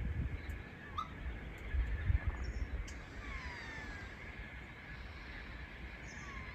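Birds calling at dusk: a few short calls and a couple of falling whistles about three seconds in, over a steady high-pitched background chorus, with a low rumble underneath.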